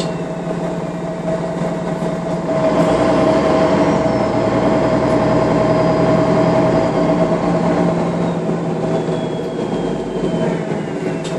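MAN NL 313 low-floor city bus heard from inside, its engine running with a steady hum, then pulling away under load and growing louder about two and a half seconds in. Faint high whines slide downward in pitch now and then.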